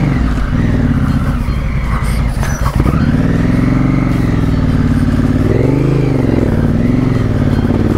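Honda CRF1000L Africa Twin's parallel-twin engine running under way, its revs rising and falling several times as the throttle is worked, with a single sharp knock just under three seconds in.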